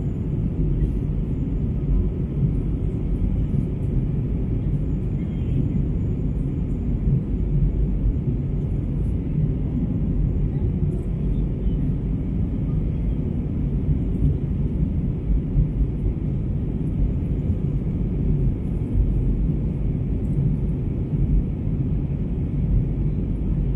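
Steady low rumble of a jet airliner's engines and rushing air, heard inside the passenger cabin during the descent to land.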